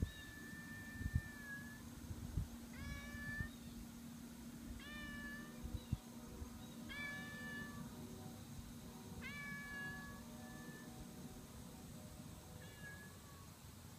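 Domestic cat meowing repeatedly: about six meows a couple of seconds apart, the first one long and drawn out, the others short.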